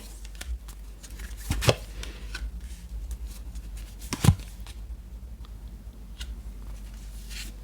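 Tarot cards being handled and laid down on a table: a few sharp taps and slaps, the loudest about four seconds in, over a low steady hum.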